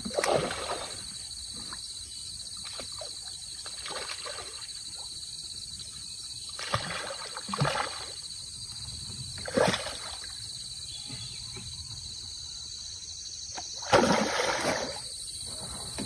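A hooked fish splashing and thrashing at the water's surface while it is played on a long pole, in separate bursts: one right at the start, two around seven to eight seconds, one near ten seconds and the loudest, longest one at about fourteen seconds. A steady high-pitched drone runs underneath.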